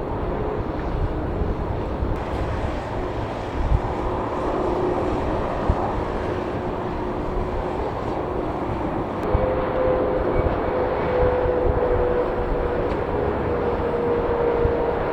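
Jet airliner engines running with a steady rumble; a steady whine-like tone joins in about nine seconds in.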